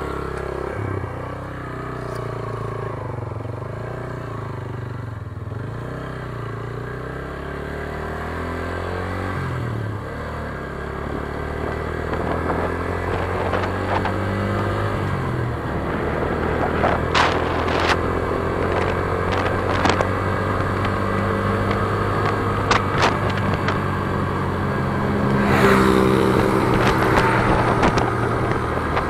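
Motorcycle engine pulling away from a stop and running up through the gears, its pitch dropping and climbing again at the shifts, getting gradually louder as speed builds.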